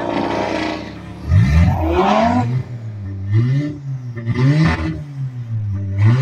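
Audi sedan's engine revving at a drag-strip start line: it runs steadily at first, then about a second in it is revved up and let fall once, followed by short throttle blips roughly once a second.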